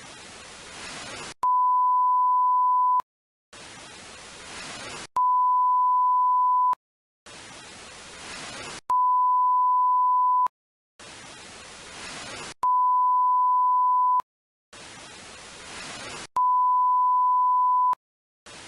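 TV static hiss alternating with a loud, steady, single-pitch test-card tone of the kind that goes with colour bars: about a second and a half of hiss, then about a second and a half of tone, then a brief gap, the cycle repeating five times.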